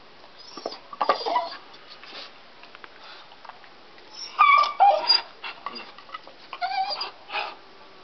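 A deaf dog whining and crying while it bites at a log, in three bouts of high, wavering cries about one, four and a half, and seven seconds in, the loudest in the middle.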